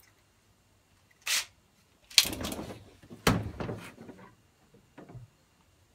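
Knocks and scrapes on a plastic pickup bed liner as someone shifts and kneels on it, in a few separate bursts with one sharp, loud knock just past the middle.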